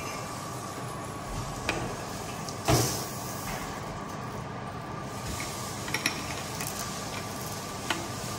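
Dry red lentils being poured from a glass jar into a glass measuring cup and tipped into a stainless-steel mesh sieve: a few light glass clinks and one short, louder rattle of lentils about three seconds in, over a steady hum.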